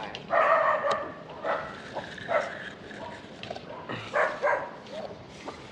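A dog barking, with several short barks spaced out irregularly and a longer run of barks about half a second in.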